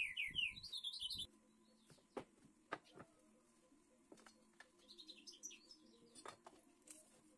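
A songbird sings a quick run of chirping notes, loudest in the first second and again, quieter, about five seconds in, with a few light knocks of wooden boards being handled on a workbench in between.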